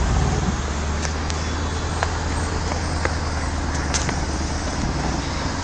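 Car engine and road noise as a steady low drone in traffic, holding an even pitch rather than accelerating, with a few faint clicks.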